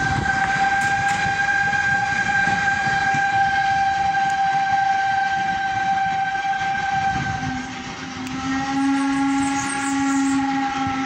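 Baldwin No. 68 steam locomotive's whistle blowing one long, steady blast of about seven seconds. After a short dip, a second blast sounds with a fuller chord of several notes. The low rumble of the train's coaches on the track runs beneath.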